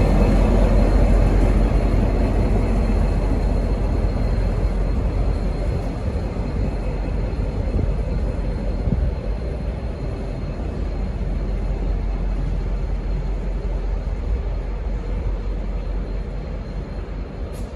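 V/Line N class diesel-electric locomotive N467 running as it pulls away light engine, its rumble fading steadily as it moves off.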